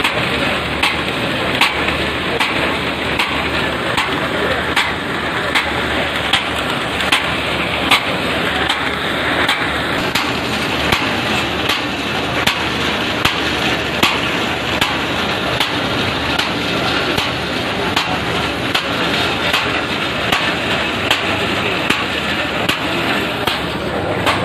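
Paper bag making machine running, with a sharp click repeating evenly a little more than once a second over a steady mechanical noise.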